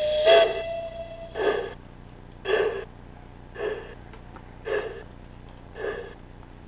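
Sound decoder of an LGB 99-6001 model steam locomotive (Zimo MX690S) playing through its small loudspeaker. A steam whistle ends about a second in, then slow, evenly spaced exhaust chuffs follow, about one a second, as the locomotive runs slowly.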